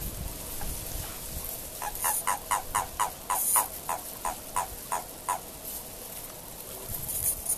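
Japanese common toad calling during courtship: a quick run of about a dozen short croaks, roughly four a second, lasting about three and a half seconds and stopping about five seconds in.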